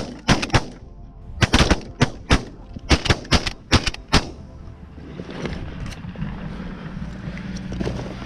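Several 12-gauge shotguns firing a rapid, ragged volley of about a dozen blasts at geese overhead, the shots overlapping as more than one hunter shoots. The shooting stops about four seconds in.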